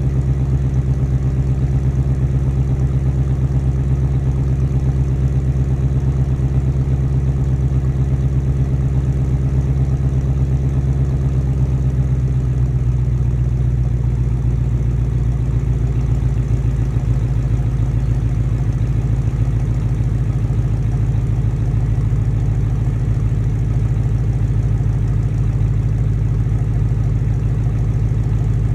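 Ford Mustang GT's 5.0 L Coyote V8 idling steadily through an MBRP aftermarket exhaust, its note changing slightly about halfway through.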